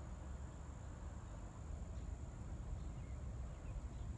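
Quiet outdoor background: a steady high-pitched tone over a low rumble.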